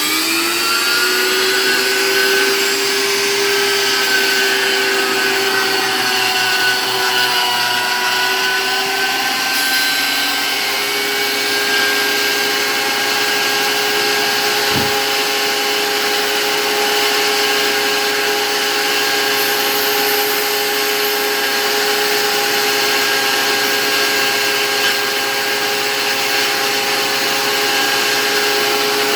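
Thickness planer running steadily with a whining, several-toned hum; its pitch sways briefly and then holds level. A single short click comes about halfway through.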